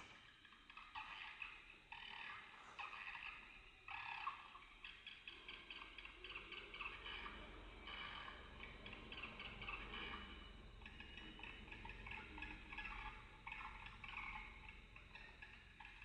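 Swiftlet calls: a faint, dense twittering of rapid clicking chirps.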